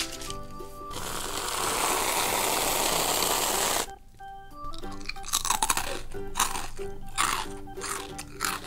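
Tatua Dairy Whip aerosol whipped-cream can hissing steadily for about three seconds as cream is sprayed out, cutting off suddenly. Then crunchy chewing of ring-shaped fruity cereal.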